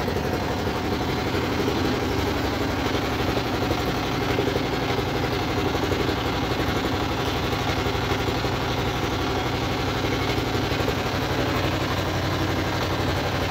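Fishing boat's engine running steadily, an even low hum with noise above it.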